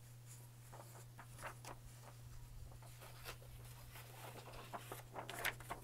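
Sheets of paper being handled and shuffled: a series of short, soft rustles that grow busier near the end, over a faint steady low hum.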